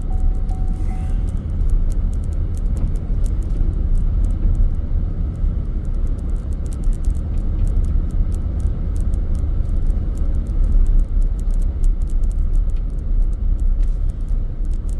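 Steady low road rumble of an all-wheel-drive Chevrolet Suburban driving through deep snow, heard from inside the cabin, with a scattering of faint clicks over it.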